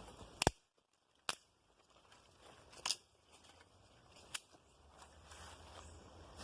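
Four sharp clicks or snaps, irregularly spaced about one to one and a half seconds apart, over faint background noise.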